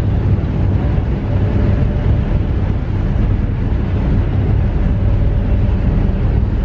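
RoRo ferry's diesel engines running with a steady low drone and a constant hum, heard from on board, over a wash of water and wind noise.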